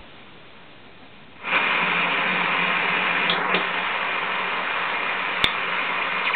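Dancom R203 shortwave receiver's speaker hissing faintly, then about a second and a half in jumping up to loud static with steady tones running through it, tuned near 7.194 MHz on a long-wire antenna. One sharp click about five and a half seconds in.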